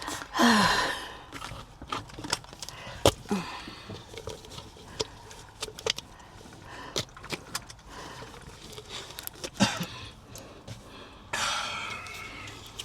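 A loud breathy exhale, like a tired sigh, about half a second in, then scattered clicks, knocks and rustling of objects being handled, with a longer stretch of rustling near the end.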